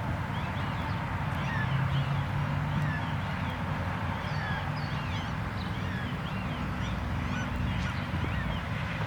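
Many small birds chirping and twittering, with a steady low hum underneath.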